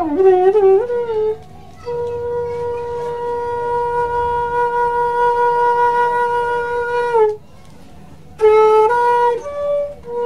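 Slow solo flute melody: a few gliding notes, then one long held note for about five seconds, a brief pause, and a run of short notes.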